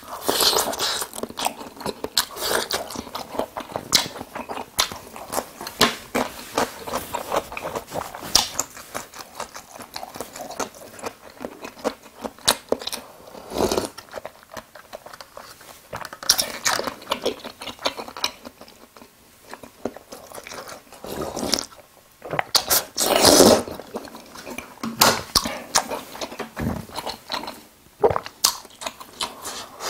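Close-miked eating: chewing and biting of jajangmyeon noodles and crispy fried tangsuyuk pork, with wet smacks and crunches, and a sip from a cup about halfway through. The loudest moment comes about three quarters of the way in.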